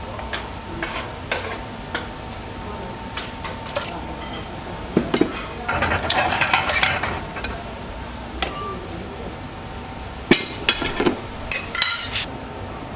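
Metal tongs clinking and scraping against a metal sauté pan and ceramic plates while spaghetti with mussels is served out of the pan. There is a longer stretch of scraping and stirring in the pan about six seconds in, and a quick run of sharp clinks near the end.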